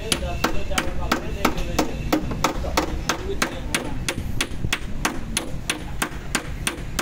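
Background music with a sharp, clap-like beat about twice a second, very even, over a low wavering melodic line.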